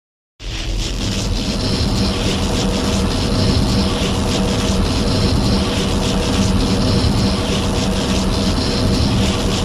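A film sound effect: a steady, loud, engine-like rumble with a low hum in it, starting suddenly after a moment of silence.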